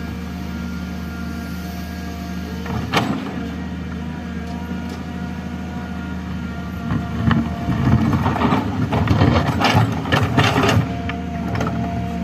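Excavator and truck diesel engines running steadily, with a single knock about three seconds in and a louder stretch of knocking and clatter in the second half as waste is loaded.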